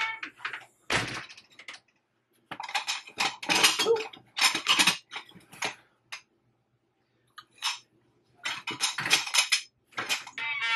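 Ceramic teacups clinking and knocking against each other as they are packed into a cardboard box, in two spells of quick clatter with a pause between.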